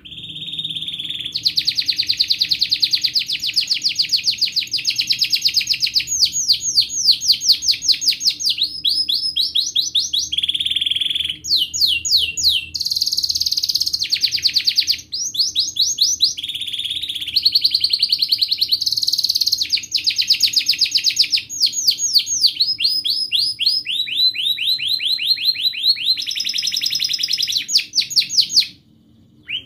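Domestic canary in full, continuous song: a long run of rapid trills, each phrase of quickly repeated notes lasting one to three seconds before switching to the next. The song breaks off about a second before the end.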